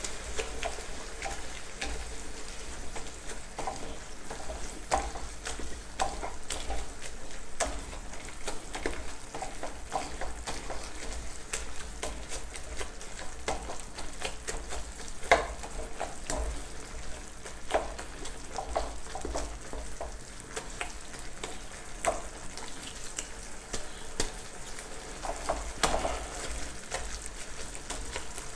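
Potato and spice masala sizzling in a frying pan while a spoon mashes and stirs it, with frequent taps and scrapes of the spoon against the pan and one sharper knock about halfway through.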